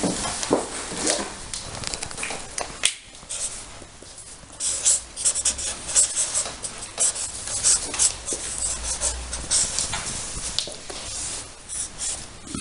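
Felt-tip markers squeaking and scratching on paper in short, irregular strokes.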